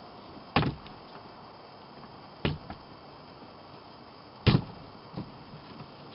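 Three sharp knocks or bangs about two seconds apart, each followed by a fainter knock.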